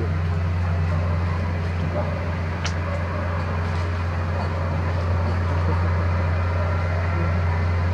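A steady low mechanical drone, constant throughout, with a brief faint high chirp about two and a half seconds in.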